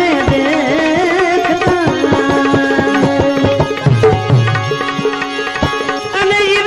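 Bhajan music without words: tabla playing a steady rhythm with deep bass strokes, under a melody instrument whose line wavers in pitch.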